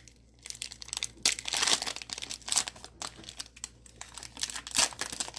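Plastic wrapper of a Panini Contenders football trading card pack crinkling and tearing as it is handled and opened, an irregular run of crackles with a few louder bursts.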